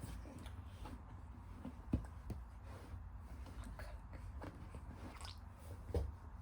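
Quiet eating sounds of a seven-month-old baby being spoon-fed puree: soft mouth clicks and smacks, with two louder light knocks about two seconds in and near the end.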